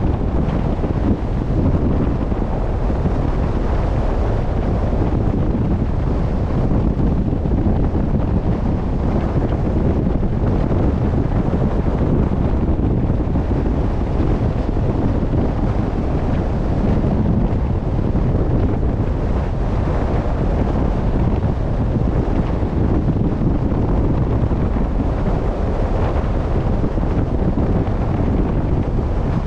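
Wind blowing steadily across the microphone, a loud low rush, with the wash of open sea beneath it.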